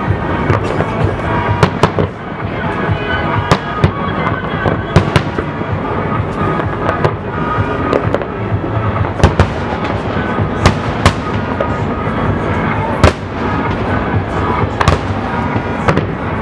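Fireworks display with many aerial shells bursting: sharp, irregular bangs over a continuous rumble and crackle, the loudest bang about 13 seconds in.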